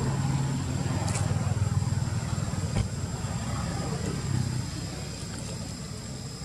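A motor vehicle's engine running with a low hum, strongest for the first four seconds or so and then easing off, as if passing by. A steady high-pitched whine sits over it.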